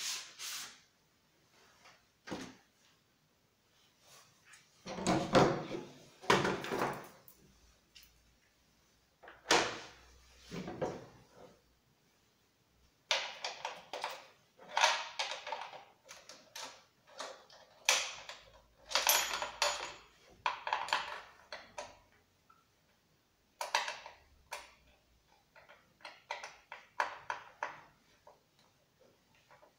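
Chainsaw parts being handled on a wooden workbench: irregular knocks, clicks and rattles of plastic and metal, with a few heavier thumps and a busier stretch of clicking and rattling midway.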